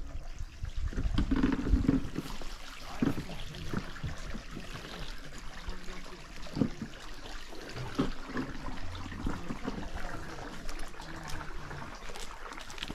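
Stream water trickling steadily, with occasional soft thumps.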